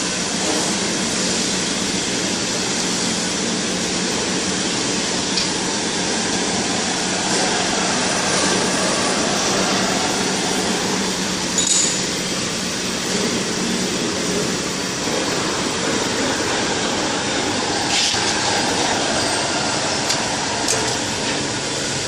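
POLO DX 115 automatic knife-sharpening machine running: a steady hiss over a low hum, with a few sharp clicks, the loudest about halfway through.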